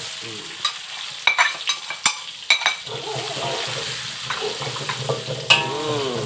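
Chopped shallots, garlic, onion and chillies land in hot oil in a wok and sizzle at once. A spatula stirs and scrapes them around the pan, clicking against the wok several times.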